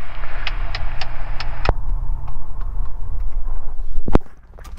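Ikarus C42B microlight's engine idling on the ground after landing, heard through the cockpit intercom, with several sharp clicks in the first two seconds. About four seconds in, a loud click as a headset is pulled off, and the sound briefly drops away.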